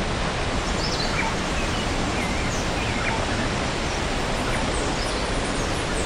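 Steady rush of a waterfall and the white water of the rocky stream below it, with a few short, faint bird chirps scattered through it.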